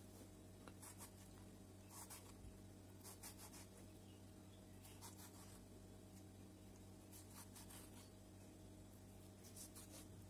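Faint, short scrapes of a small kitchen knife cutting through peeled tomatoes held in the hand, in little clusters every second or two, over a low steady hum.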